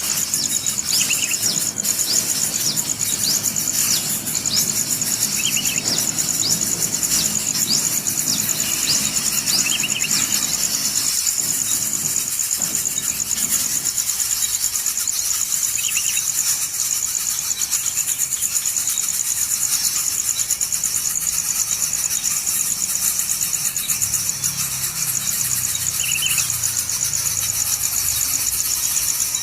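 Steady high-pitched insect drone, with short bird chirps every few seconds.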